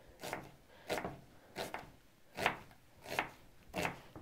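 Kitchen knife slicing an onion into half rings on a wooden cutting board: about six even cuts, each ending in a knock of the blade on the board, roughly one every two-thirds of a second.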